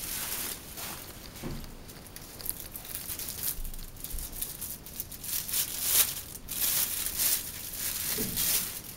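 Bubble wrap and thin plastic wrapping crinkling and rustling as a camera lens is unwrapped by hand. The crackles are irregular, with the loudest about six seconds in.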